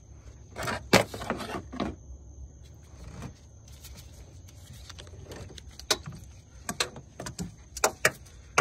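Pliers and metal parts being handled in a car's engine bay: a series of sharp clicks, clinks and scrapes, busiest near the end, as the pliers are worked onto a coolant hose clamp.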